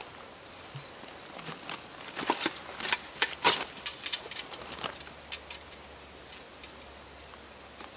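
Camping gear being handled: a quick run of small clicks, knocks and rustles about two to five seconds in, as a fabric bag and its cord are worked and hung on a branch.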